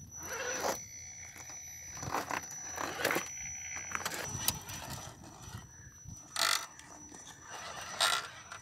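Radio-controlled rock crawler being driven over bare rock: irregular scuffs and scrapes a few seconds apart, with a thin steady high whine underneath.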